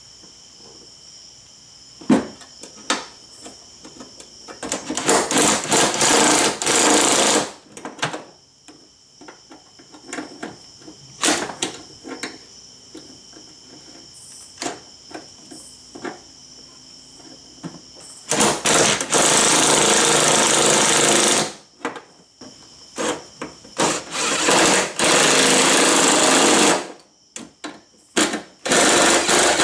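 Cordless power driver with a socket running bolts into the wiper mechanism mount, in several loud bursts of one to three seconds each. Short clicks and clanks of the socket and tools come between the bursts.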